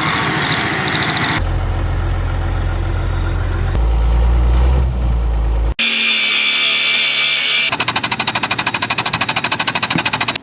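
A string of short, abruptly cut bursts of loud tool and machine noise: a deep steady running sound, then a bright high-pitched whine, then a fast, even hammering rattle.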